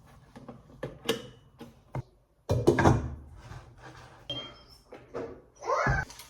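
A run of light knocks and clatters from household objects being handled, with a louder clatter about two and a half seconds in and another near the end.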